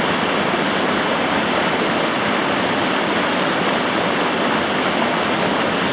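The Firehole River running fast over shallow riffles: a steady, even rush of water.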